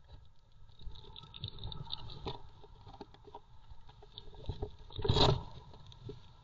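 Baby squirrels wrestling: scratchy rustling and small irregular knocks, with a louder scuffle about five seconds in.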